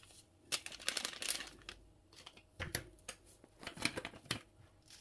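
Crinkling and rustling of a small seasoning packet, handled by a gloved hand, as katsuobushi (bonito flakes) are shaken out over a bowl of udon, in a few short bursts.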